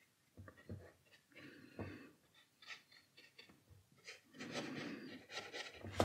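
Faint, scattered scratches and light taps of a fine paintbrush working on watercolour paper, with louder rustling handling noise in the last couple of seconds.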